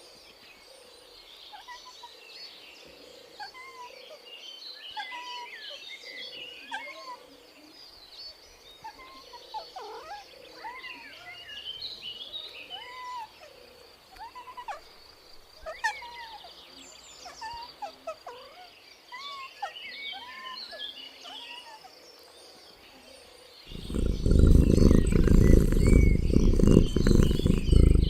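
Outdoor chorus of birds chirping: many short, arched calls, some repeating about once a second. Near the end a loud, low rumbling noise covers the last four seconds or so.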